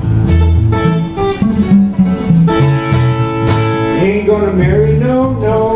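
Solo steel-string acoustic guitar playing an instrumental break: picked chords over a steady, repeating bass-note rhythm.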